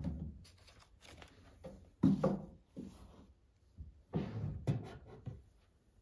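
Books and folders being handled and slid onto a wooden desk shelf: a few irregular knocks and scuffs with rustling in between, the loudest about two seconds in and again around four seconds.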